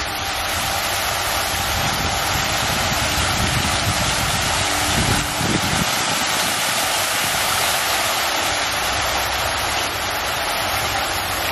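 Water pouring in steady columns from overhead spouts and splashing into a pond, a continuous rush of falling water.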